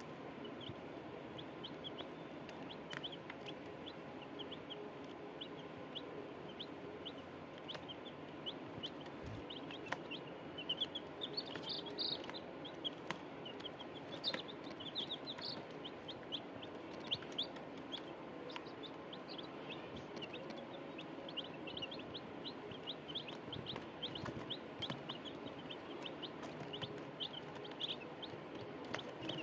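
Chicks peeping in a long string of short, high cheeps, several a second, over lower clucking.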